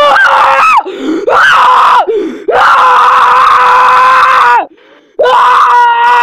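A child screaming very loudly. There are short swooping yells at first, then two long screams each held at a steady pitch for about two seconds.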